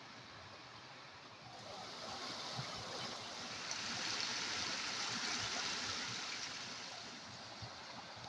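Shallow mountain stream rushing over rocks, a steady hiss of water that swells louder from about a second and a half in, is loudest around the middle, and eases off near the end.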